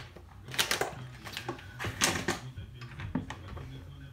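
Small clicks, taps and rustles of kitchen items being handled by hand at a counter, several close together about half a second in and again about two seconds in. A faint low hum runs underneath.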